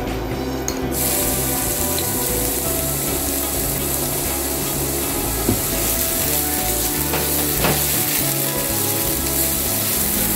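Food frying in hot oil in a pan, a steady sizzle that starts about a second in, with a few light clicks.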